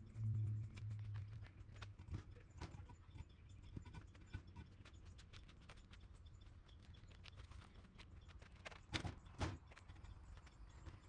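Two sharp knocks close together about nine seconds in, as a concrete cinder block is set onto a stack of cinder blocks, over faint scattered ticking.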